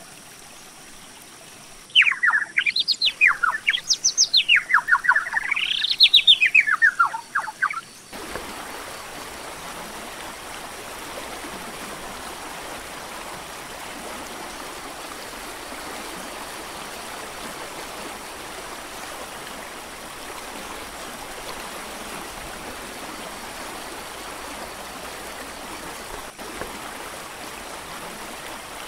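A loud, rapidly pulsing, bird-like warbling call that sweeps up and down in pitch for about six seconds, then cuts off abruptly to the steady rush of a mountain creek's flowing water.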